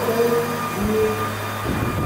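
Twin rotors of a large electric RC Boeing-Vertol CH-47 Chinook model helicopter running with a steady hum as it hovers, with a low rushing sound joining near the end.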